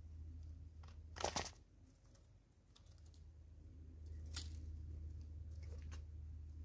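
A plastic bag of seeds crinkling as a Smith's bush squirrel tugs at it, a short rustle about a second in, then a sharp click and a few faint scrapes and clicks. A low steady hum runs underneath.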